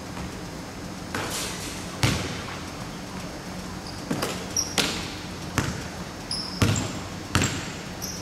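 A basketball bouncing and being caught on a hardwood gym floor: about seven sharp thuds that echo in the hall, the loudest about two seconds in and again near seven seconds. Short high sneaker squeaks come in between during the second half.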